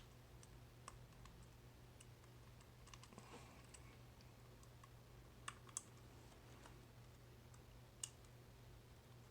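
Faint, scattered small clicks of a tubular lock being picked, as the pins set and slip, over a low steady hum.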